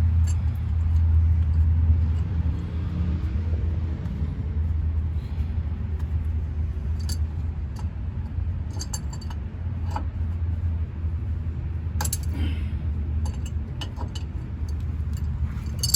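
Steady low rumble of an idling vehicle engine, with scattered short metal clinks of a wrench working on a drain bolt.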